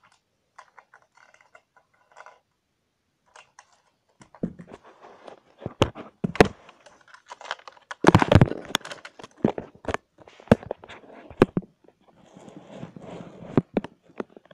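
Plastic toy car and figures being handled and knocked about close to the microphone. A few faint ticks at first, then scraping, rustling and sharp knocks, busiest and loudest about eight seconds in.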